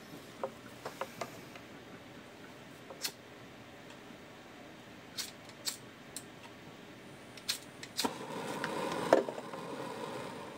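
Scattered light clicks and knocks of a lighter and tools being handled, then, about eight seconds in, a hiss of gas from a torch lasting a couple of seconds with a sharp click in it, the loudest sound here, before it fades.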